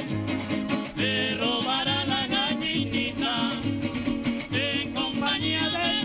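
A Venezuelan golpe tocuyano string ensemble of cuatros and guitars playing briskly, with quick plucked melody runs over a steady pulsing bass.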